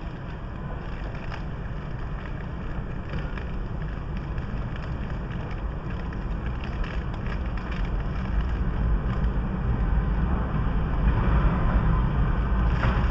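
Passenger train pulling out of a station, a low rumble of wheels and running gear that grows steadily louder as it picks up speed.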